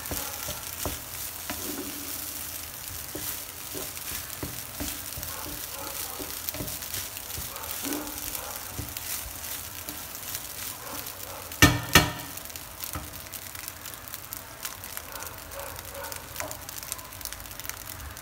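Fried rice with shrimp and vegetables sizzling in a nonstick frying pan while a wooden spatula stirs and turns it, with small scraping ticks throughout. About two-thirds of the way in come two sharp knocks in quick succession, the loudest sounds.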